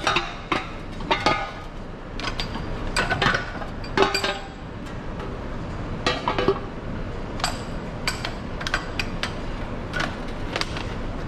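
Irregular metallic clinks and knocks as a removed engine oil pan is handled and shifted in a bench vise.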